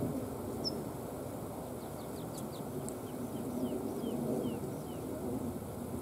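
Tree pipit singing a run of about ten short, downward-slurred notes between about two and five seconds in, with a single high chirp about a second in, over a steady low rumble.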